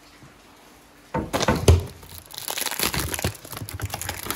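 Loud crinkling and crackling handling noise that starts abruptly about a second in and goes on in irregular bursts, with a heavy thump soon after it starts.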